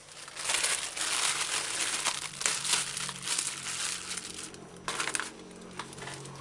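Thin plastic bag crinkling in irregular bursts as it is handled, a bag of frozen chicken parts. The crinkling starts about half a second in and thins out near the end.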